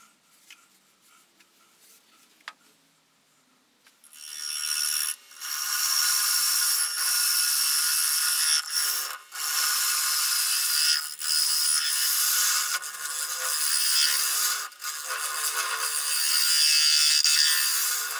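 A few quiet seconds, then a woodturning chisel cutting a spinning wooden disc on a lathe: a steady hissing scrape as shavings peel off. It breaks off briefly a few times as the tool lifts from the wood.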